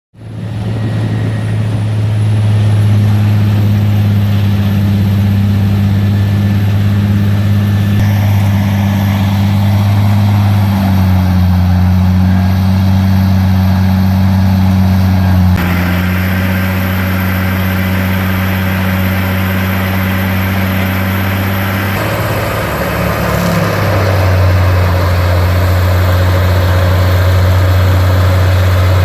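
Peterson 4710D horizontal grinder's large diesel engine running hard with a deep, steady drone and a noisy grinding layer above it; the pitch and tone change suddenly several times.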